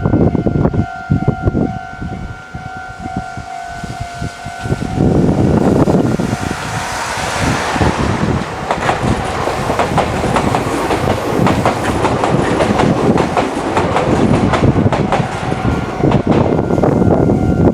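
Meitetsu 4000-series electric train passing close by, its wheels clattering rhythmically over the rail joints; the rumble builds about five seconds in and stays loud. Before it arrives, a steady high ringing tone is heard.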